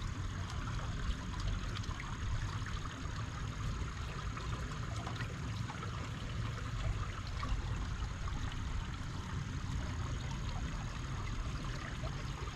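Shallow creek water trickling and babbling steadily, with small splashy ticks and a low rumble underneath.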